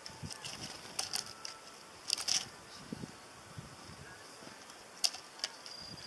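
Small sharp clicks and taps of tits at a plastic-bottle feeder, their bills and claws striking the plastic as they take sunflower seeds. They come in short clusters about a second in, around two seconds and near five seconds.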